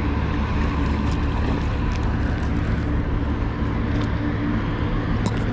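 Steady low drone of a large ship's engine on the river, an even hum with no change in pitch, with a few light clicks over it.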